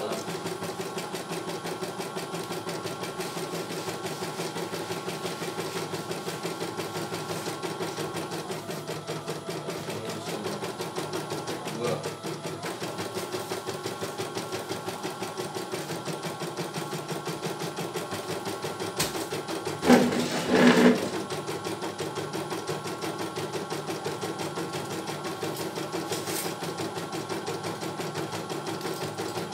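CNY E900 computerised embroidery machine stitching a design, its needle running at a fast, even rhythm while the embroidery unit moves the hoop. About twenty seconds in there is a brief louder burst over the stitching.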